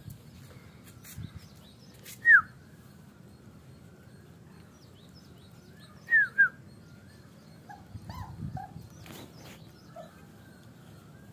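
A puppy giving short high yelps that fall in pitch: one about two seconds in, two in quick succession about six seconds in, then a few softer, lower whimpers around eight seconds in.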